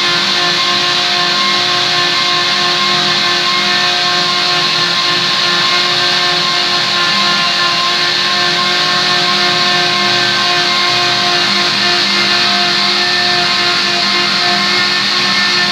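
Einhell electric router on a home-made CNC machine running at speed, its bit cutting a groove into a solid wood board: a steady, unbroken whine with some change in its tone in the second half.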